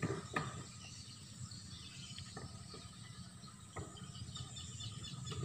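Faint insects chirping in the background, with a few soft rustles and taps as a plastic-wrapped seedling stem is handled.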